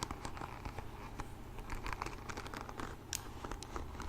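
Soft, irregular crinkling with many small ticks and clicks as something is handled.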